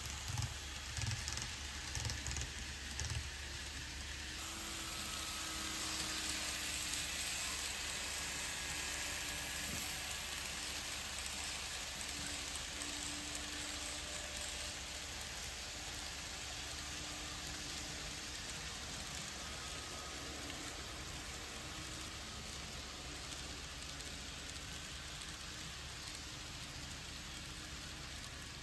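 N scale model freight train rolling along the track: a steady rushing hiss of small metal wheels on the rails, swelling as the cars pass close and then slowly easing off. A few soft low bumps in the first few seconds.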